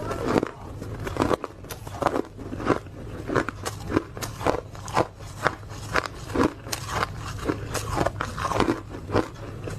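Hard ice being bitten and chewed close to the microphone: a regular series of sharp, crackly crunches, about two a second.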